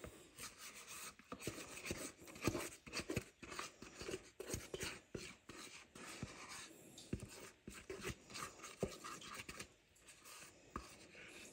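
Spatula scraping and tapping cake batter out of a mixing bowl into a metal cake pan: a run of irregular short scrapes and light clicks.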